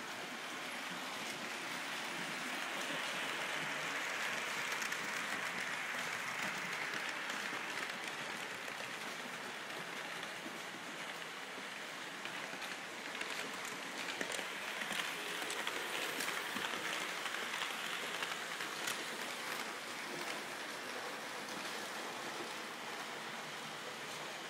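Märklin model trains running on the layout's track: a steady rushing rattle of wheels and small motors with fine clicks, swelling twice as trains pass close.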